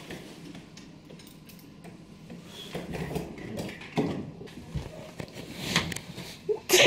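Quiet room tone, then scattered rustling, light knocks and clinks of handling and movement, with a short louder burst near the end.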